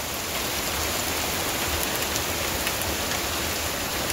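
Heavy rain pouring down steadily, an even dense hiss with a few faint sharp ticks.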